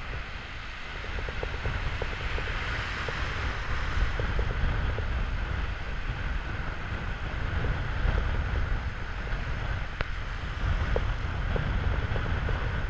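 Ocean surf breaking and washing over the shallows, with wind rumbling on the microphone. A few faint ticks and one sharper click about ten seconds in.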